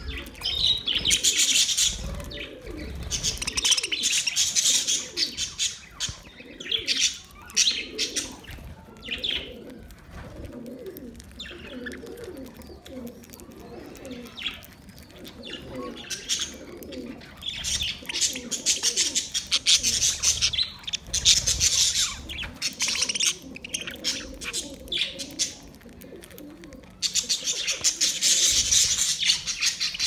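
A flock of budgerigars chattering and chirping in bursts of one to several seconds, with lower-pitched calls repeating underneath.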